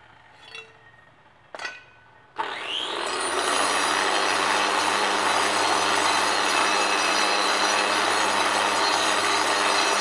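Handheld angle grinder switched on about two seconds in, spinning up with a brief rising whine, then cutting steadily into a stone block with a loud, even grinding noise. Two short knocks come before it starts.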